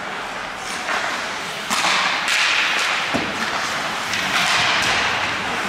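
Ice hockey play on a rink: skates scraping across the ice in hissing surges, with several sharp clacks of sticks and puck and a dull thud about three seconds in.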